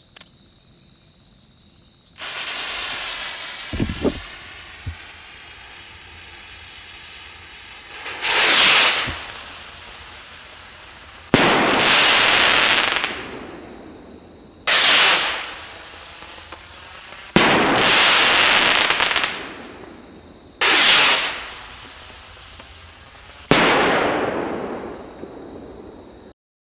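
Pound rocket firework: a hissing launch about two seconds in, then a sharp bang. Six loud bursts of crackling follow, about three seconds apart, each fading over a second or two. Crickets chirp steadily throughout.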